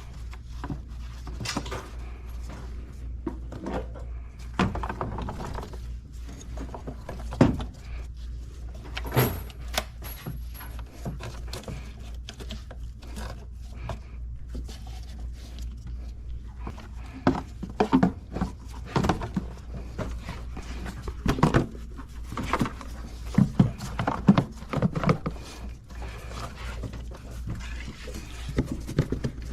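Hand tools and metal engine parts clinking, knocking and being set down in irregular bursts during reassembly work on the engine, over a steady low hum.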